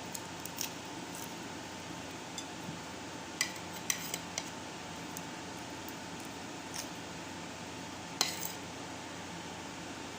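A few sharp clinks of dishes and utensils during a meal, a cluster of them about three to four seconds in and a single louder one near the end, over a steady background hiss.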